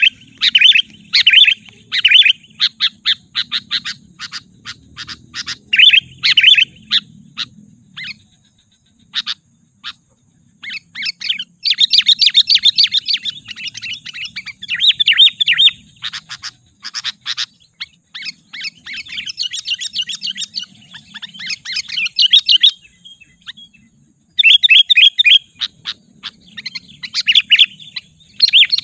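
Sooty-headed bulbul calling in quick runs of short, chattering chirps, phrase after phrase, with a few brief gaps between them.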